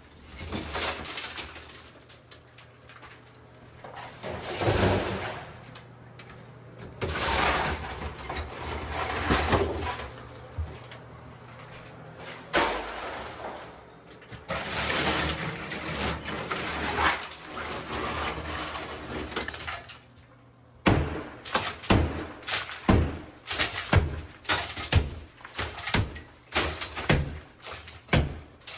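Ceramic wall tile being broken off and falling, with crashing and clattering in bursts, then a fast run of sharp hammer strikes near the end.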